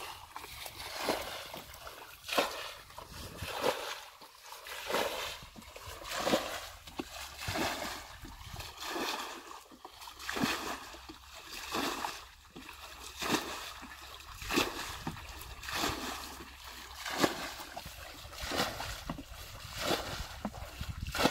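Muddy water splashing and sloshing in a steady rhythm, about once a second, as a bucket scoops water from a shallow ditch and throws it out: bailing the ditch dry.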